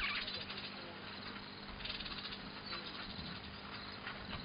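Rapid pulsed chirping from small wildlife in the bush: one burst at the start and another about two seconds in, with fainter ones later, over a steady low hum.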